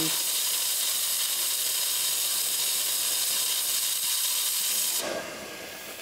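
Steam wands of a Diletta Mio and an Ascaso Steel Duo espresso machine blowing open into the air at full steam pressure, a loud steady hiss. The hiss cuts off sharply about five seconds in, leaving a fainter hiss.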